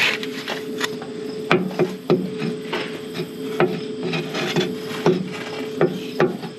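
Irregular metallic clicks, knocks and scraping from hand tools working on a truck's transfer case, as its shift shaft is turned and the new transfer case motor is fitted. A steady faint hum runs underneath.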